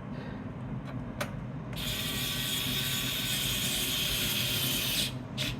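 Small electric screwdriver running for about three seconds, driving a motherboard mounting screw home. A few light clicks come before and after it.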